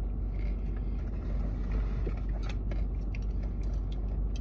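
Steady low rumble of a vehicle, with a few faint clicks and taps from handling food.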